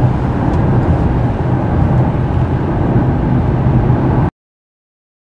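Steady road and engine noise of a moving car, which cuts off abruptly to dead silence about four seconds in.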